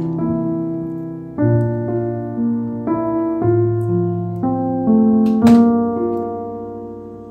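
Solo piano music, notes and chords changing every second or so, with one short sharp noise about five seconds in.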